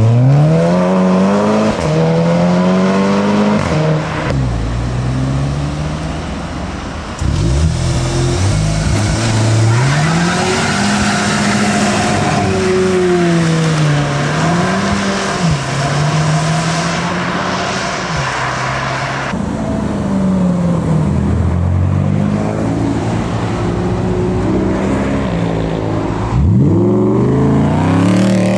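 Car engines revving and accelerating, the engine note climbing and dropping again and again as cars pull away and pass. The sound changes abruptly several times, as if short clips of different cars are joined together.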